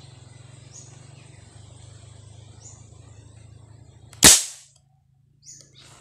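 A single sharp shot from a marble gun about four seconds in, dying away within half a second, over a faint steady low hum.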